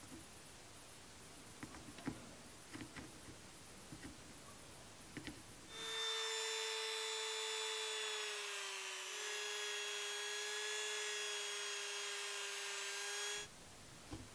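Hand-held rotary tool spinning a small polishing wheel against a bar of green polishing compound: a loud, steady high whine that starts about six seconds in, dips briefly in pitch partway through, and cuts off near the end. Before it there are only faint small clicks and taps.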